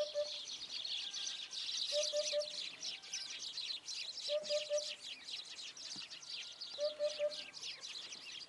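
Eurasian hoopoe calling: a low hooting phrase of three quick notes, repeated about every two and a half seconds, over a constant chatter of high chirps from other small birds.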